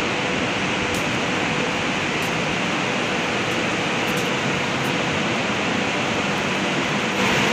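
Steady rushing whir of electric locomotives' cooling blowers running, with a faint steady hum through it; it gets a little louder near the end.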